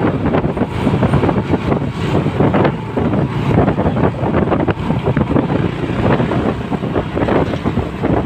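Wind buffeting the microphone of a motorcycle on the move, with the bike's small single-cylinder engine running underneath.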